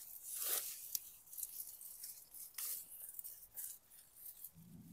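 Garden foliage rustling and crackling in irregular little rustles as a hand pushes in among the leaves and stems.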